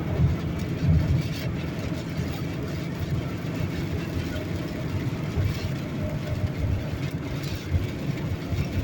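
Steady low rumble of a car driving, heard from inside the cabin during a storm.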